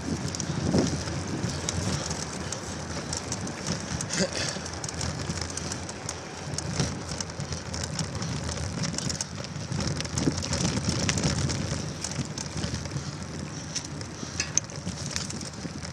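Steady crackling, rustling movement noise with scattered small clicks, from a camera travelling fast and low over dirt, gravel and dry leaves.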